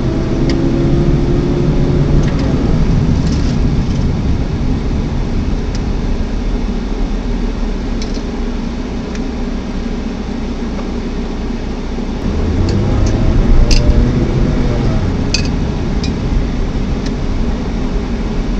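Car engine and road noise heard from inside the cabin while driving. The engine note rises and grows louder about twelve seconds in as the car accelerates, with a couple of sharp clicks soon after.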